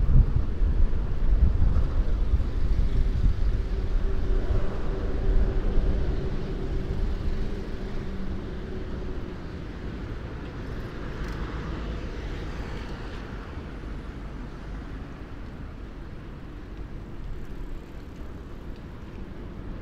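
Motor traffic passing on a city road, heard from a bicycle. A loud low rumble with a steady hum fills the first six seconds or so, another vehicle swells past about eleven seconds in, and then it eases to a lower steady rumble.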